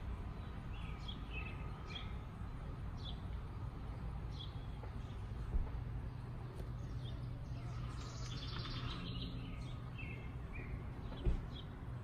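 Birds chirping in short scattered calls, with a denser run of calls about eight seconds in, over a steady low background rumble. Two brief thumps, about five and a half and eleven seconds in.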